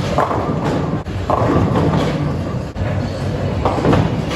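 Background music, loud and continuous, with sharper accents about once a second.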